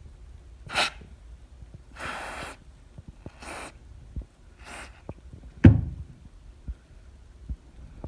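Four short hisses of cleaning solvent being sprayed onto a liquid-damaged laptop logic board, the second the longest, then a single sharp knock about two seconds later.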